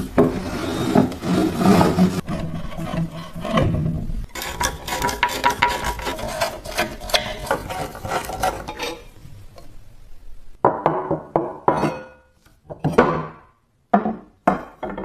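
Hand work on rusty metal parts, scraping and rubbing in several quick cuts. Near the end it becomes separate strokes with short pauses between them.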